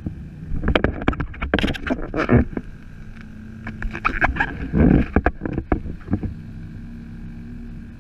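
Kayak paddle strokes: the paddle splashing into the water and knocking against the kayak in two quick runs, with one heavier thump near the middle, over a steady low hum.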